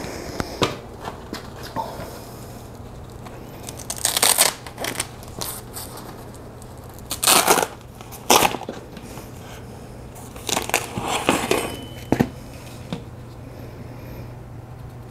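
A bicycle wheel's rubber tyre and rim being handled and worked by hand, giving several bursts of rubbing and scraping and a sharp click about twelve seconds in, over a low steady hum.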